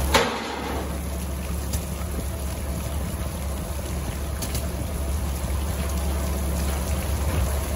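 Water spattering down from a leaking wooden railroad water tank, over a steady low rumble. There is a short knock right at the start.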